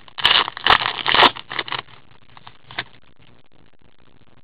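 Wrapper of a hockey card pack crinkling and tearing as it is ripped open by hand. A run of rustling crackles over the first two seconds, then one short crinkle.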